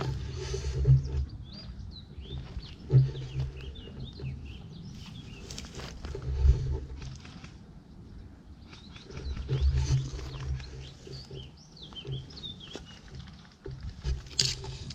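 Wild birds chirping in short, scattered calls. Several louder low rumbling bursts on the microphone are the loudest sounds.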